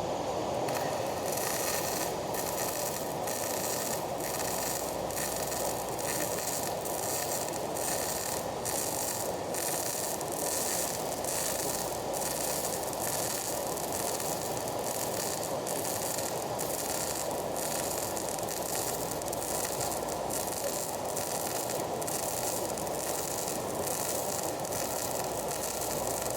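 Electric arc welding: a steady, crackling sizzle from the arc, starting just under a second in.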